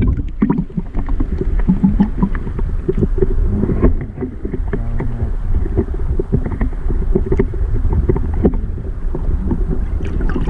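Muffled underwater water noise from a camera held below the surface while a largemouth bass is let go by hand: a steady low churn of moving water with many small ticks and knocks.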